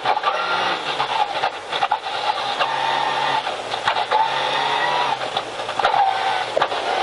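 Rally car engine running hard, heard from inside the cabin, with a downshift from fourth to third gear. Many short clicks and knocks ride over the engine note throughout.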